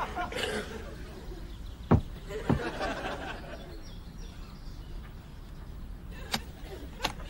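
Two sharp knocks about two seconds in, half a second apart, then two clicks near the end as the catches of a hard suitcase are snapped open.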